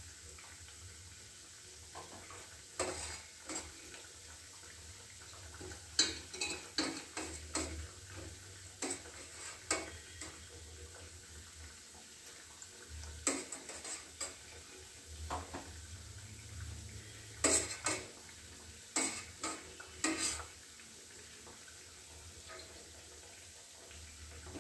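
A wire-mesh skimmer clinks and scrapes against a steel pot in irregular clusters of sharp metallic clicks as syrup-soaked puris are lifted out and drained. Under it runs a low steady sizzle of puris frying. The clinking stops for the last few seconds.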